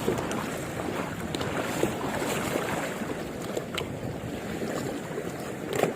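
Steady rush of wind and sea waves, with a few faint ticks.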